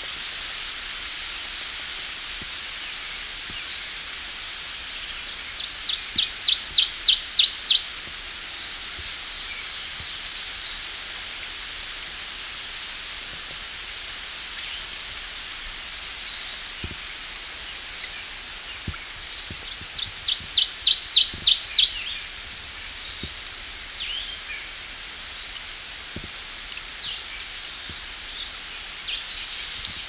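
Ovenbird singing its loud chant twice, about fourteen seconds apart. Each song is a quick run of repeated notes, about two seconds long, growing louder to the end. A steady background hiss and a few faint chirps run between the songs.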